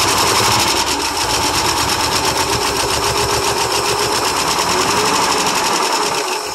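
International Harvester 392 V8 running on gasoline poured into its carburetor, given a little throttle by hand, on one of its first starts after about 28 years sitting. Its steady rapid running cuts out suddenly right at the end.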